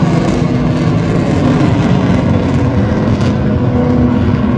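Engine noise of an airplane flying overhead: a steady, loud drone with a low hum.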